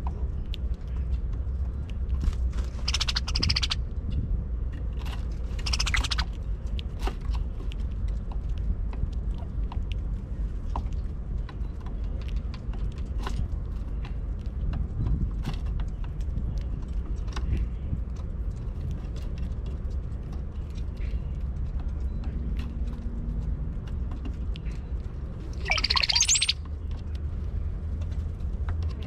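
Brown-headed cowbirds calling at a seed feeder: two short bursts of calls a few seconds in, then a louder call with quick gliding whistles near the end.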